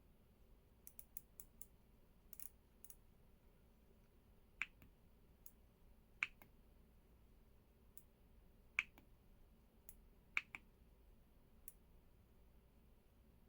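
Scattered key presses on the EPOMAKER x LEOBOG K81 Pro mechanical keyboard: a few quick light clicks early on, then four louder single key clicks a second or two apart, the last followed closely by a softer one.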